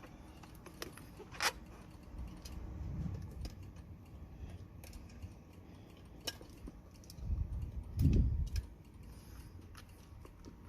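Scattered small clicks and a few low, dull thumps of hands handling parts and wiring, as the truck's horn connector is being plugged back in.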